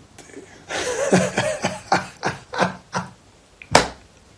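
A man laughing in a run of short bursts, about three a second. He is trying to hold the laughter back. Near the end there is a single sharp knock.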